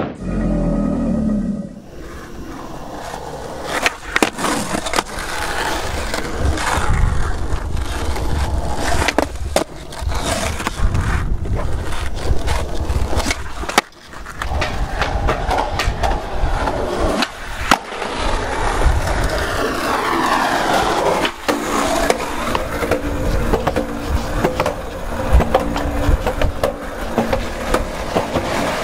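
Skateboard wheels rolling over asphalt and concrete pavement, broken by sharp clacks of the board popping and landing.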